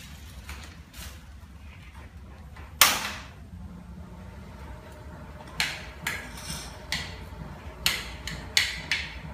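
Sharp knocks on a hard surface: one loud knock about three seconds in, then a run of about eight quicker knocks in the second half.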